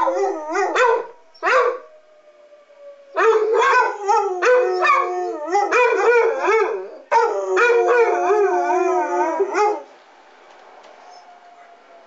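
Two basset hounds howling together in long, wavering cries, set off by a public-address warning siren heard faintly beneath them as a slowly falling tone. After a few short howls and a pause, they howl steadily from about three seconds in and stop near ten seconds, leaving only the faint siren.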